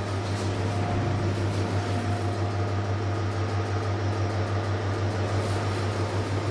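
Passenger elevator giving off a steady low hum with an even hiss over it.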